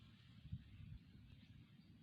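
Near silence: faint low rumble and hiss, with a soft low thump about half a second in.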